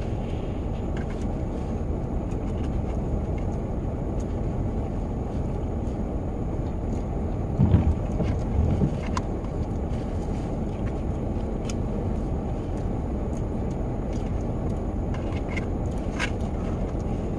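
Steady low rumble inside a minivan's cabin, with scattered faint ticks and a brief louder low sound about eight seconds in.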